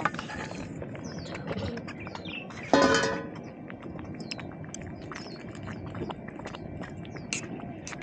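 Raw shrimp tipped from a steel bowl into a pot of boiling rice porridge, a brief splash at the start. About three seconds in, a short loud sound with several pitched tones rises over scattered small clicks and faint high chirps.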